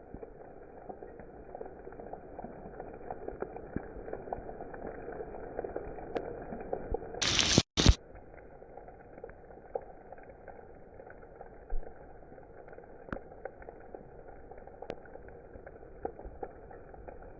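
Steady rain with crackly pattering drops. A little after seven seconds in, a loud hissing burst lasts under a second, with a brief dropout in the middle.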